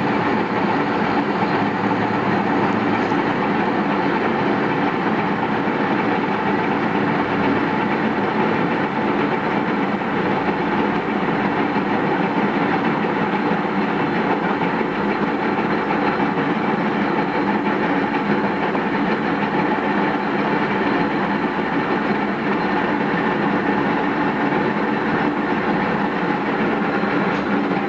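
Metal lathe running steadily, with a constant motor and gear hum under the noise of the tool facing the end of a steel workpiece.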